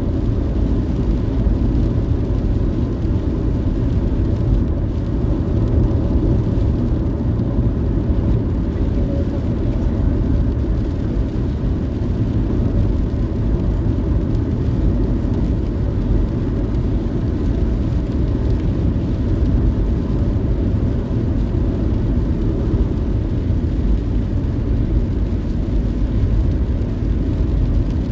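Steady road noise of a moving car: a constant low rumble of engine and tyres.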